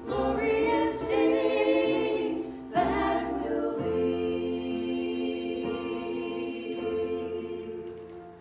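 A group of voices singing a worship song, ending on a long held chord from about four seconds in that fades away near the end.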